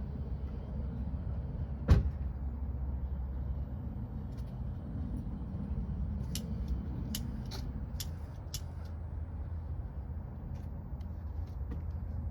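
Small hand torch for heat-shrink tubing being handled and lit: one sharp knock about two seconds in, then about five quick igniter clicks between six and nine seconds, over a steady low rumble.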